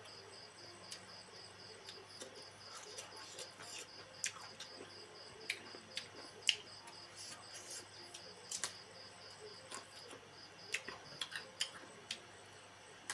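Crickets chirping in a steady pulse, with scattered sharp clicks and smacks of chewing over it. The loudest click comes about six and a half seconds in, and a cluster follows near eight and a half seconds.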